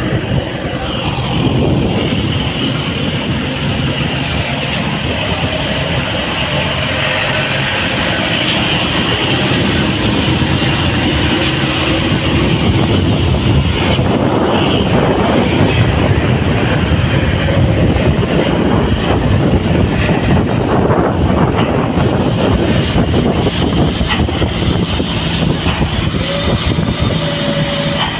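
Steady rushing road noise from a moving vehicle: wind, tyre and engine rumble blended together.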